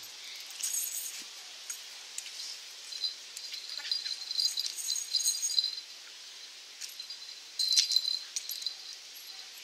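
Light metallic jingling in several spurts, loudest through the middle and again briefly near the end, from a dog's collar hardware shaking as it runs and jumps up.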